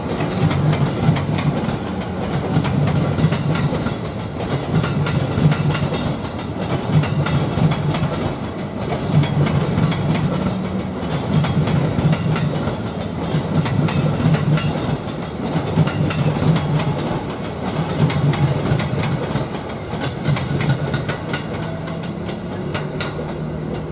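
Electric commuter train (KRL Commuter Line multiple unit) rolling past close by, its wheels clattering over the rail joints in a steady clickety-clack. A low rumble swells and eases in a regular rhythm every one and a half to two seconds.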